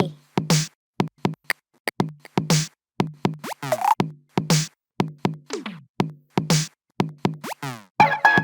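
A Google Pixel (2016) stock ringtone playing: an electronic drum-machine beat with a low kick about once a second, crisp clicks between, and sweeping synth glides. Near the end, sustained synth tones come in over the beat.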